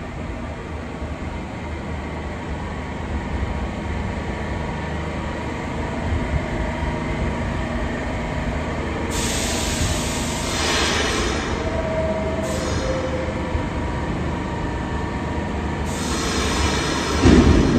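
New York City subway train running into the station, its rumble growing louder, with stretches of high wheel squeal and screech and a sudden loud clatter near the end.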